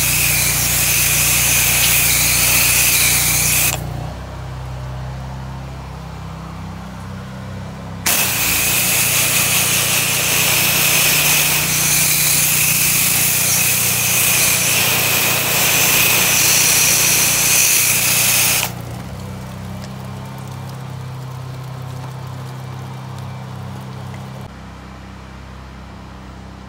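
Pressure washer wand spraying water onto house steps and siding: a loud hiss that stops about four seconds in, starts again about four seconds later, and stops again a little past the middle. The machine's engine hums steadily underneath, still running in the gaps between sprays.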